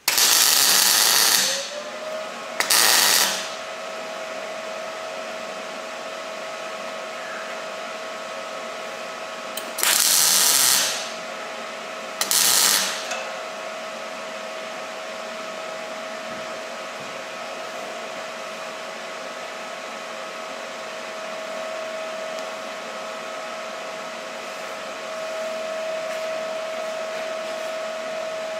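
A small electric motor spinning up about two seconds in, then running at a steady hum to the end. Four loud, short bursts of hissing noise come in the first half.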